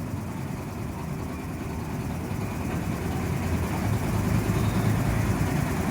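Steady low mechanical rumble, like an engine running, growing a little louder about four seconds in.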